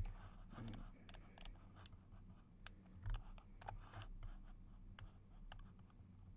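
Faint, irregular clicking of a computer mouse and keyboard during selection in modelling software, with a soft thump right at the start and another about three seconds in.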